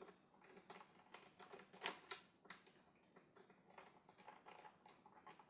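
Quiet, irregular plastic clicks and taps from a hand working at the display frame of a Dell XPS 17 laptop over its keyboard, the sharpest about two seconds in.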